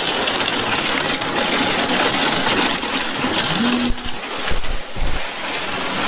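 Concrete pump running as wet concrete rattles and rushes out of the discharge hose into ICF wall forms, a loud, steady, noisy rush. A brief rising, then steady whine comes in about three and a half seconds in.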